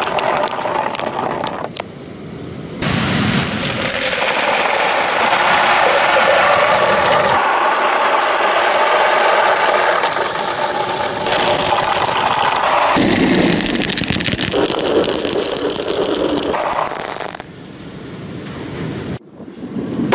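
Small balls rolling and rattling down plastic rain-gutter tracks, in several short takes that cut off abruptly.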